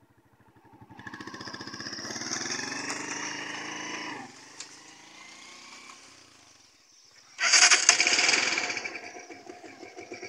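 Small motorcycle engine idling with an even putter, then revving up with a steady rise in pitch for about three seconds before dropping back. About seven seconds in there is a sudden louder surge of engine noise that dies away.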